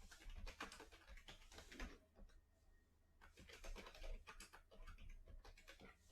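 Faint computer keyboard typing in two quick runs of keystrokes with a short pause between them.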